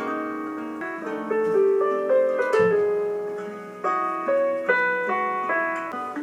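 Instrumental background music: a light melody of single plucked or struck notes.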